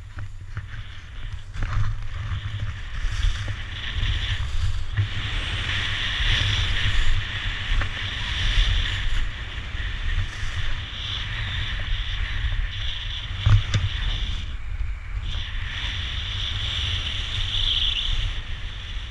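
Skis running and carving on groomed snow: a scraping hiss that swells and fades with the turns, over steady wind rumble on the action camera's microphone, with one sharp click partway through.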